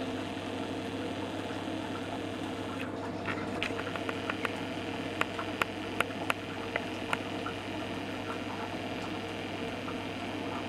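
Distillate dripping from a copper pot still's outlet pipe into a stainless steel funnel on a glass jug: irregular sharp drips, several a second, from about three seconds in until about seven seconds in. A steady low hum runs underneath.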